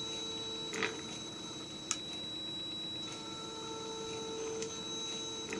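Mercedes M119 S-Class electronic throttle body energized on a test rig, humming steadily with a few short faint clicks as it is worked; a healthy hum, the sign of a unit in good working order.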